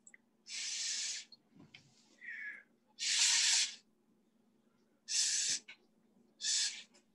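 Air blown by mouth across wet paint to push it around on the paper: four hard, short puffs and one softer one, each a brief hiss.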